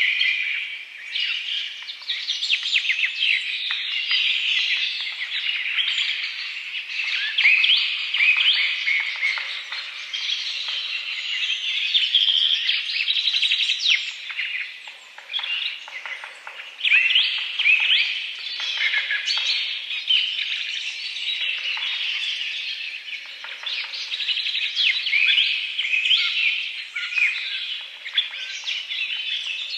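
Many small birds chirping and twittering at once, a dense, ever-changing chatter of short high calls with no pause.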